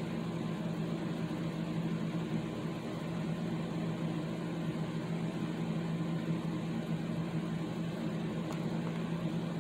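A steady low mechanical hum, unchanging throughout, like a running motor or fan.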